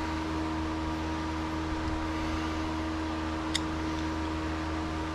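A steady mechanical hum with several constant tones, with one light click about three and a half seconds in.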